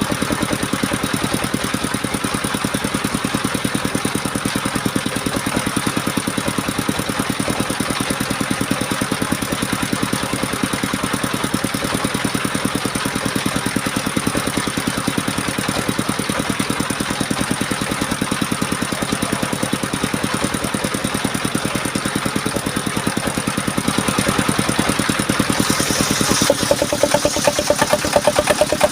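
Engine of a homemade portable circular sawmill running steadily with an even, rapid firing beat. It grows louder and brighter near the end.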